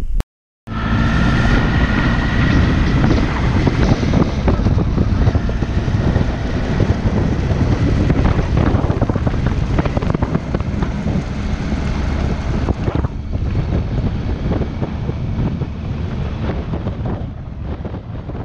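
Wind buffeting the microphone of a moving motorcycle, a Triumph Tiger 800, with its engine running underneath. The sound cuts in suddenly after a short gap at the start, with a faint rising whine in the first couple of seconds as the bike picks up speed.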